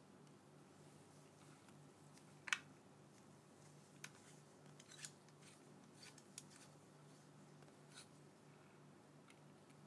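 A handful of short, sharp clicks and taps from a clip-on phone camera lens and its clip being handled, the loudest about two and a half seconds in, over a faint steady hum.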